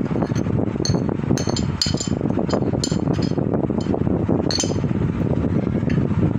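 A spoon clinking against a mixing bowl several times while food is added and stirred, over a steady low rumble of background noise.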